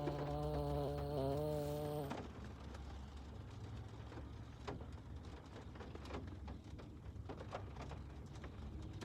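A dog snoring: a low buzzing drone for about the first two seconds, then much fainter.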